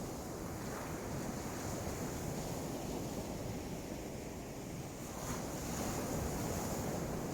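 Waves washing onto the shore with wind buffeting the microphone, a steady rushing noise that swells a little near the end.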